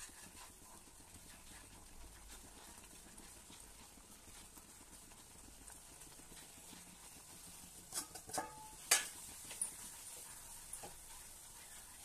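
Wooden spatula stirring flour into a wet mixture in a nonstick pan, with soft scraping. About eight seconds in comes a quick cluster of sharp knocks against the pan, a couple with a short metallic ring, the loudest a second later.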